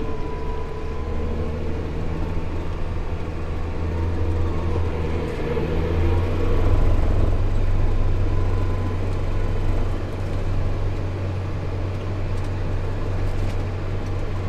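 Farm tractor engine running steadily under way, heard from inside the closed cab as a low drone; it grows louder about six seconds in and eases again near ten seconds.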